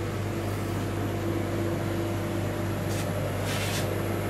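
Walk-in cold room's refrigeration unit running: a steady low hum with a constant higher tone over it, and a few faint ticks about three seconds in.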